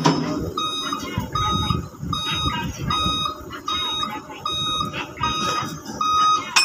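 A vehicle's reversing alarm beeping steadily, about one beep every 0.7 seconds, over a low engine rumble.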